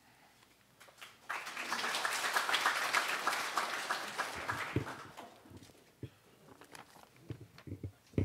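Seated audience applauding. The clapping starts about a second in, swells, and dies away about four seconds later, leaving a few faint knocks.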